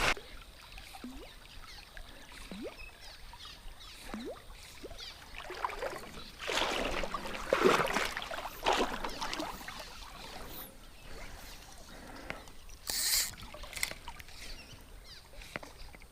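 Water sloshing and splashing around a kayak, with a louder stretch of splashing in the middle and a brief high hiss near the end.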